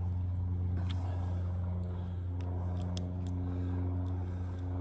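A steady low mechanical hum, like a running engine, with a few light metallic clicks as a nut driver loosens the nuts on a steel wire-rope clamp.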